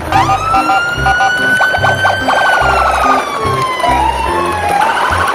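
A siren-like sound effect: one long whistling tone that climbs, holds, slides down about three seconds in, then climbs again, over cheerful background music with a steady beat.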